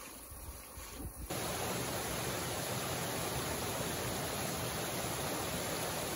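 A rocky mountain stream rushing over boulders and small cascades: a steady, even rush of water that comes in suddenly about a second in, after a quieter low rumble.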